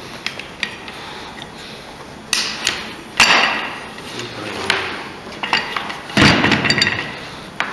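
Several sharp metallic clanks and knocks of tools and hardware being handled, with no motor running; the loudest come about three seconds in and again about six seconds in.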